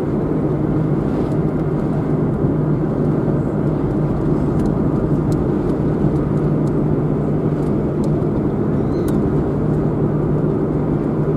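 Car driving at a steady speed, with an even low engine hum under steady road noise.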